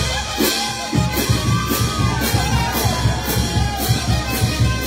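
Peruvian brass band with sousaphones, brass, drums and cymbals playing a lively tune. The cymbal strikes about twice a second, and the bass drum drops out briefly and comes back in about a second in.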